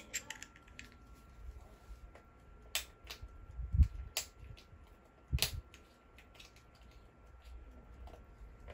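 Small clicks and knocks from a vintage wristwatch being handled: a quick run of light clicks at the start, then a few sharp clicks and two dull knocks around the middle.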